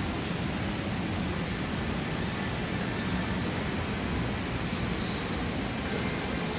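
Steady city street ambience: an even wash of noise with no distinct events standing out.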